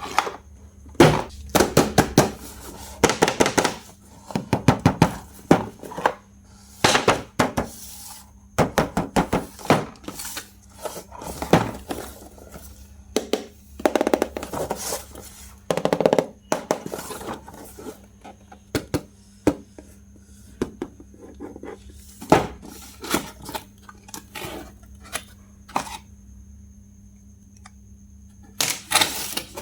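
Packaging and plastic toy parts being handled during an unboxing: irregular clicks, knocks and crackly rustling, with a quieter pause near the end.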